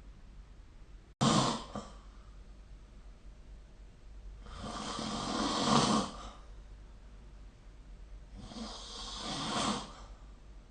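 A sleeping person snoring: two long snores about four seconds apart, each swelling louder and then stopping sharply. About a second in, a sudden short burst of noise comes before them.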